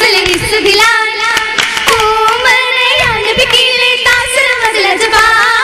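Girls' voices singing an Oppana song, a Mappila song in a wavering, ornamented melody, with the dancers' rhythmic hand claps.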